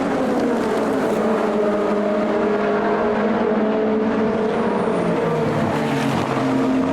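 Race car engines at speed passing close by, several heard at once, their notes falling in pitch as they go past. A new, lower engine note comes in near the end.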